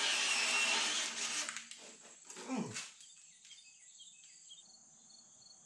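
Handheld drill boring into a steel beam, running steadily under load, then stopping about a second and a half in. A short sound that falls in pitch comes a second later, and faint high chirping is left.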